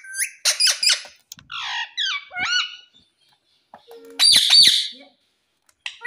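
Indian ringneck parakeet calling: a run of short chirps and quick rising whistled notes, then a loud, harsh squawk a little after four seconds in.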